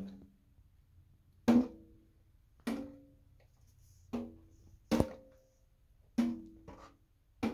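A plastic toy boat knocking against a stainless steel kitchen sink as it is pushed about in the water: a series of hollow knocks, about one a second, each with a short ringing tone.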